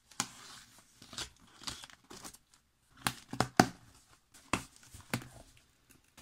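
Cardboard shipping box being opened with a utility knife: tape and cardboard tearing as the tape is slit and the flaps pulled apart, with several sharp cracks about three to five seconds in, and crinkling of kraft packing paper.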